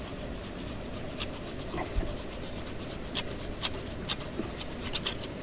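A knife blade sawing back and forth through a rope with rapid, even rasping strokes, several a second. A few strokes come out louder in the second half.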